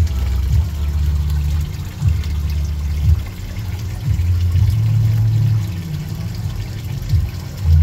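Low, uneven rumble of running water, swelling and dipping every second or so.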